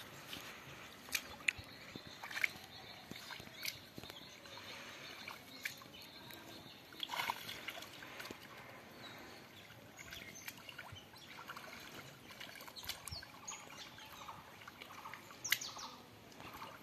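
Faint sloshing and small, irregular splashes as bare hands grope through shallow muddy water, with birds chirping now and then.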